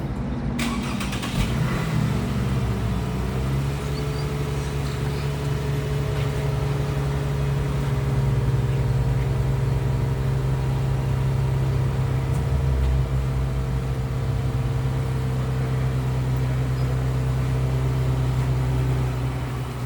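Car engine idling steadily after its pitch settles in the first few seconds, as an engine does just after starting. It drops away near the end.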